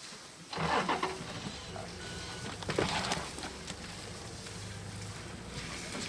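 A vehicle engine idling with a steady low hum. Over it come two louder rushing whooshes, about a second in and about three seconds in, as an African elephant blows dust from its trunk while dust-bathing.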